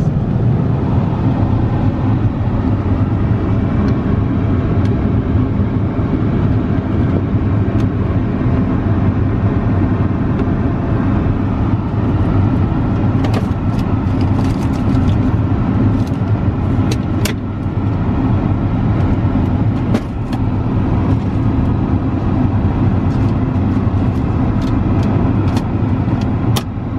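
Steady cabin noise of an Airbus A380 in cruise: a low hum with a constant rush of airflow. Scattered light clicks and knocks through the middle and near the end come from plastic lavatory drawers and wrapped toothbrush packets being handled.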